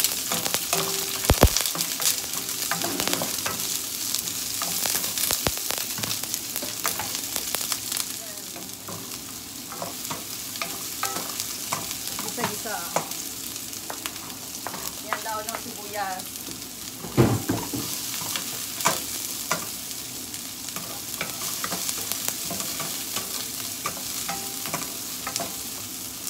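Sliced onion, garlic and spring onion sizzling in hot olive oil in a frying pan, stirred with a wooden spoon that clicks and scrapes against the pan. One louder knock comes a little past halfway.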